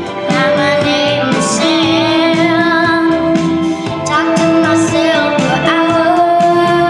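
A young girl singing a song into a microphone with piano accompaniment, holding some notes with vibrato.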